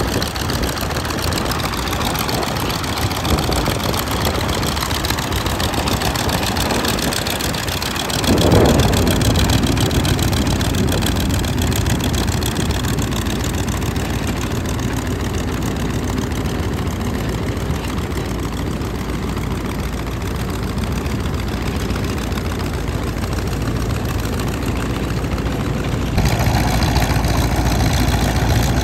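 Hino V8 diesel engine of about 380 hp on a paddy-field tiller tractor, running steadily. It gets louder abruptly about eight seconds in, and again near the end.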